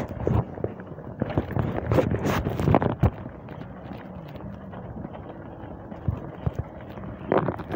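Irregular knocking and rustling from a handheld phone on a moving bicycle, with wind on the microphone. It is busiest in the first three seconds and again near the end, calmer in between.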